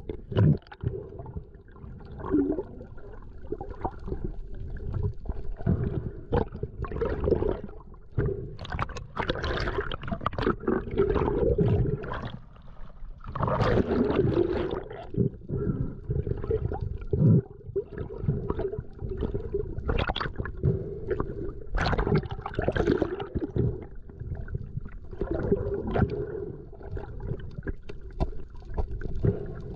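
Water gurgling and sloshing on a camera in the water during a spearfishing dive, coming in irregular surges with no steady rhythm.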